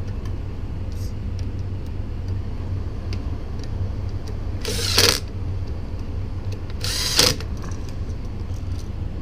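Hand tools working on a 120-volt receptacle as the white neutral wire is fastened under its terminal screw: faint clicks and two brief scraping hisses, about five and seven seconds in, over a steady low hum.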